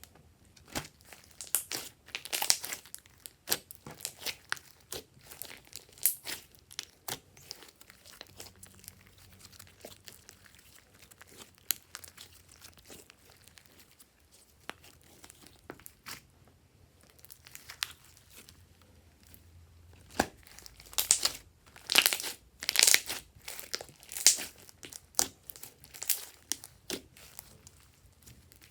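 Hands squeezing and stretching glossy slime with mix-ins, making irregular sticky crackles, clicks and pops. The crackling comes in busier flurries a couple of seconds in and again about two-thirds of the way through.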